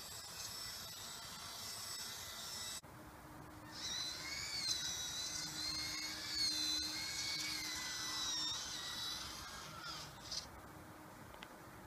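Small electric drive motor and gearbox of an RC tandem road roller whining as it drives, the pitch wavering up and down with its speed. The whine starts about four seconds in and fades about ten seconds in.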